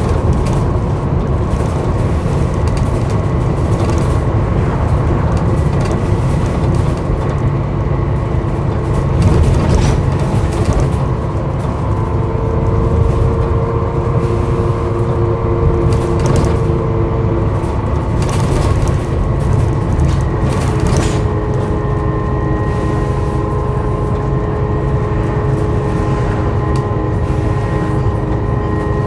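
Inside a Volvo B7TL double-decker bus on the move: its six-cylinder diesel and driveline run with a steady low rumble and a groaning drone made of several held tones, one of them stronger for a few seconds near the middle. Short knocks and rattles from the body come through it.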